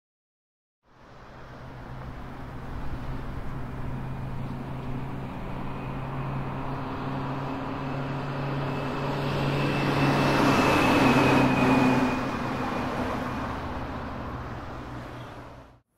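A vehicle passing over a steady low hum: it swells to its loudest about ten seconds in, then fades away, and the sound cuts off abruptly near the end.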